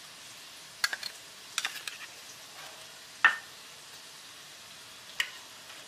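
Steel spoon clinking and scraping against stainless steel bowls as a wet paste is spooned onto raw chicken: a few light clicks, and one sharper ringing clink about three seconds in.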